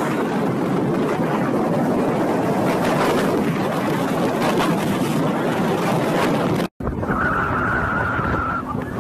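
A moped's engine and heavy wind rushing over a phone microphone while riding. The sound cuts off abruptly near the end; when it resumes, a steady high tone lasts about a second and a half.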